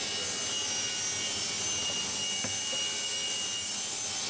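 Electric drill running steadily with a high whine, boring a pocket hole into wood through a hidden-screw drilling jig.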